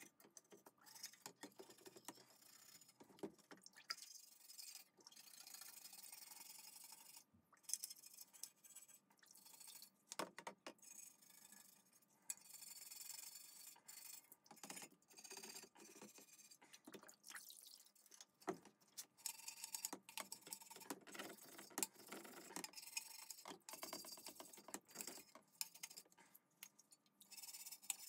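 Faint clicks and taps of small metal parts being handled while a rusty toy sewing machine is worked on by hand, with several stretches of scrubbing in between.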